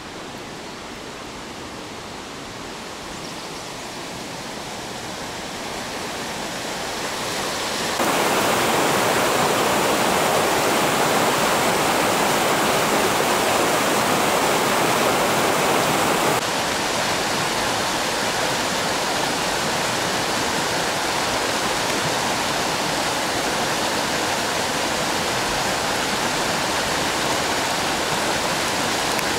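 Mountain river flowing fast over stones: a steady rush of water that grows louder over the first several seconds, turns suddenly louder about a quarter of the way in, and drops back a little about halfway through.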